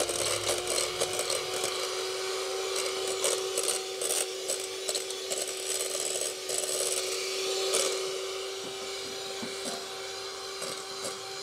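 Electric hand mixer running at a steady speed with a constant hum, its beaters whisking egg yolks and clicking and scraping against the sides of the bowl. The scraping is busier for the first eight seconds or so, then lighter.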